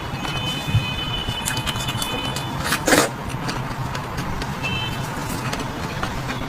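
Steady background noise like road traffic, with a short sharp crackle about three seconds in.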